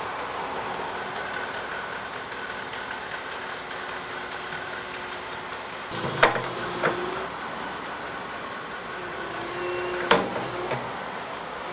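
Volvo EW 180 D wheeled excavator's diesel engine running steadily, with two pairs of sharp knocks, one about halfway through and one near the end.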